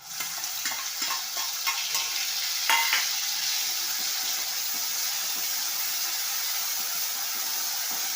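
Wet paste of ground onion, garlic, ginger and green chilli dropped into hot tempered oil in a kadai, sizzling loudly and steadily. A spoon clicks and scrapes against the pan as it is stirred in, mostly in the first three seconds.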